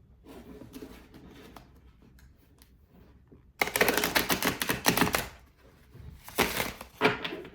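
A deck of tarot cards being shuffled by hand: soft handling and rustling at first, then a fast run of card clicks lasting under two seconds, and a second shorter run near the end.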